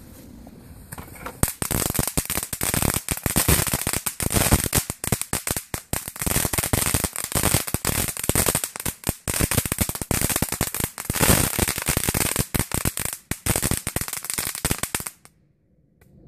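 Vulcan Astro Magic Whip, a one-metre string of category 1 firecrackers, going off in a fast, continuous string of sharp bangs that starts about a second and a half in. The bangs run on for roughly fourteen seconds, then stop suddenly.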